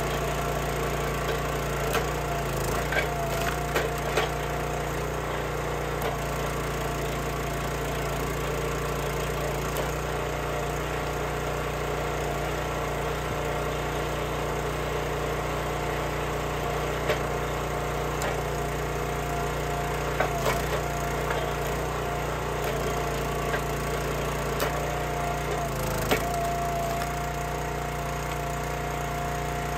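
Small gas engine of a hydraulic log splitter running steadily, with scattered sharp cracks and knocks of oak rounds splitting and pieces being handled. The engine's note shifts slightly near the end as the ram pushes through a round.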